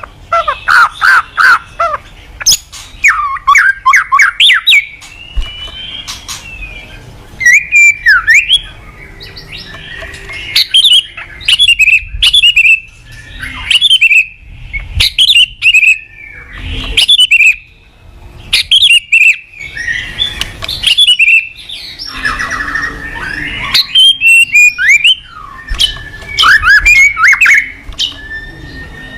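White-rumped shama (murai batu) in full song. It sings loud, varied phrases of fast repeated notes, trills and gliding whistles in bursts a second or two long, with short pauses between them.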